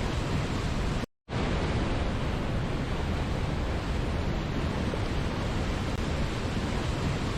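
Steady, even rush of a waterfall, heaviest in the low end. It cuts out to near silence for a moment about a second in, then resumes unchanged.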